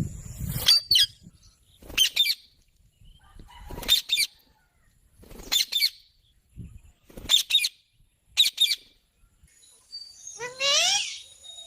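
Baby Indian ringneck parrot calling: short, high chirps about every one and a half to two seconds, then near the end a longer call that rises in pitch.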